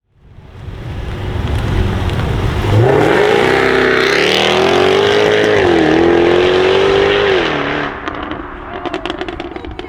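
Jaguar F-Type V8 R's 5.0-litre supercharged V8 accelerating hard. The engine note climbs about two and a half seconds in, holds high with one brief dip, then falls away. As it falls off, a quick run of sharp exhaust crackles and pops follows.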